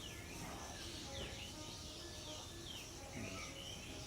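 Birds chirping faintly: a few short, quick chirps over a steady low background hum of outdoor noise.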